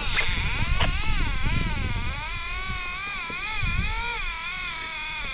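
Fishing reel's drag screaming as a hooked fish strips line: a wavering whine that rises and falls about twice a second. Wind rumbles and hisses on the microphone throughout.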